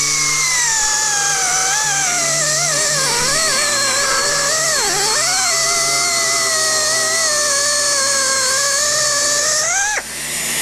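Two air-powered Dotco grinders, a belt sander and a disc sander, grinding composite: a high air-motor whine with a pitched tone that sags and wavers as the tools are pressed into the work, most deeply about halfway through. Near the end the pitch climbs sharply and then drops away as a tool comes off the work.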